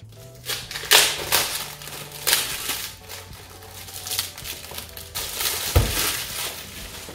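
Clear plastic bag crinkling and crackling as a book is pulled out of it and the plastic is crumpled by hand, in loud bursts about a second in, around two and a half seconds in and near six seconds in. A low thump comes near six seconds in.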